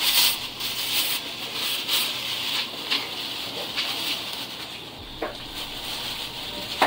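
Thin plastic bag crinkling and rustling as fruit is handled in it, most busily in the first few seconds. Two short sharp clicks follow near the end.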